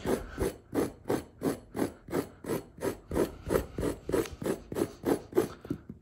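Metal table fork raked back and forth through carpet pile, about three short scrapes a second, stopping just before the end. The fork is loosening flattened, matted carpet fibres.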